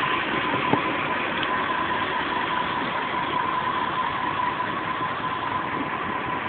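The 4.4-litre V8 of a 1998 BMW E38 740i is idling steadily, with a constant high tone running through it and a single faint tick about three-quarters of a second in. The owner hears the engine running rough, shaking and slightly knocking, with a hissing he cannot place.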